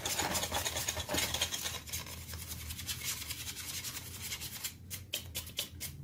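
A small paintbrush's bristles brushed in quick repeated strokes over the plastic blower fan and shroud of a mini PC's CPU cooler, sweeping off dust. The strokes are a little sharper near the end.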